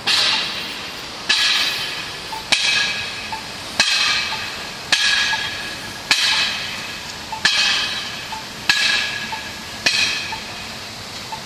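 Uprooted metal parking meter being banged in a steady rhythm: nine ringing metallic clangs, about one every second and a quarter, each fading before the next.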